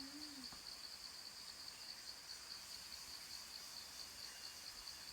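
Cicadas calling in a steady, high-pitched chorus, faint and unbroken.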